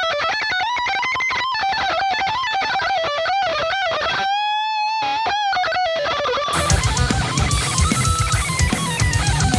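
Jackson Dinky DX10D electric guitar through distortion playing a melodic lead line, with a long held note with vibrato about halfway through. Near the end a heavier, fuller part with a strong low end comes in.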